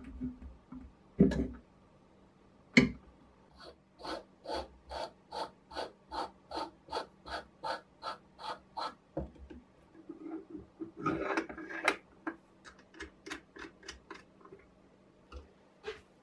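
A threaded wooden handle cap being screwed on by hand, wood rubbing against wood in short even strokes, about two and a half a second. It opens with a knock and a sharp click, and near the end there is a quicker run of light clicks and rubs.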